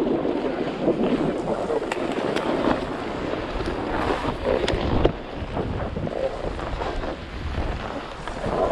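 CAPiTA Super DOA snowboard scraping and sliding over packed, groomed snow, a steady rough hiss with a few small clicks, while wind buffets the helmet camera's microphone.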